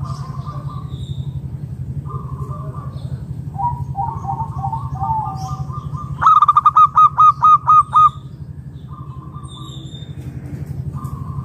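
Zebra doves (perkutut) cooing in repeated short trilled phrases. About halfway through, one bird sounds much louder and closer, with a quick series of about eight ringing coo notes over roughly two seconds. A steady low pulsing hum runs underneath.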